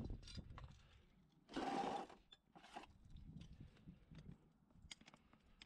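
Steel horseshoe and farrier's tools handled at a horse's hoof: a thump at the start, then scattered light metallic clicks and taps. About a second and a half in comes one short breathy burst of noise, the loudest sound.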